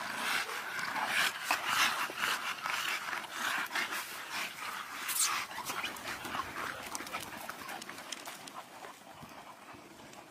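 Several bully-breed dogs panting together, with many short clicks and rustles as they move about; the sound fades near the end.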